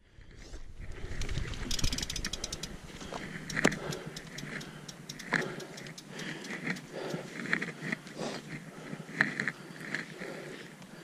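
Mountain bike's freehub ticking rapidly about two seconds in, followed by scattered clicks and rustles as the bike and gear are handled. Gloved hands fumble at the helmet camera near the end.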